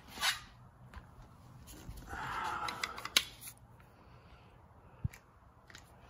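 Handling noises: a brief rustle at the start, a longer scraping rustle about two seconds in, and two sharp clicks.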